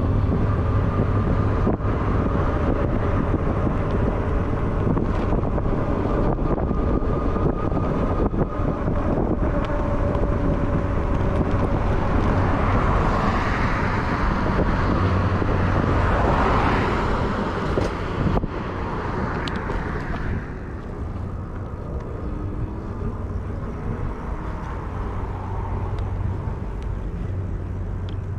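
Street traffic heard from a moving bicycle over a steady low rumble. A vehicle swells past around the middle, and the sound eases off a little after about twenty seconds.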